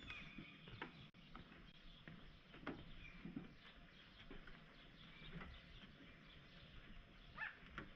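Faint outdoor ambience with scattered short bird calls and a few soft footsteps.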